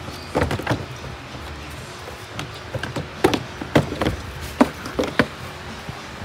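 Plastic air intake duct being worked loose and lifted out of a car's engine bay: a string of irregular plastic clicks and knocks.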